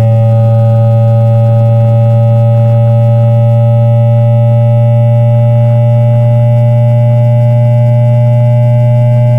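Inductor-pickup recording of a JR East E2-1000 series Shinkansen's 3-level IGBT VVVF traction inverter and motors in synchronous 1-pulse mode while accelerating: a loud, steady low electric hum with overtones that creep slowly upward in pitch as speed builds.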